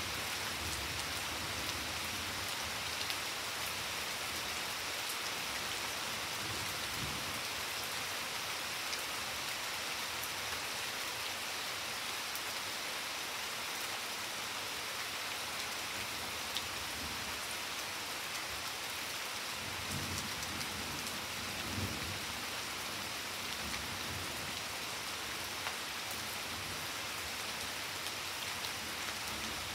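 Steady rain pattering on garden foliage and a wet flagstone patio, with low rumbles of thunder swelling up a few times, most strongly around twenty seconds in.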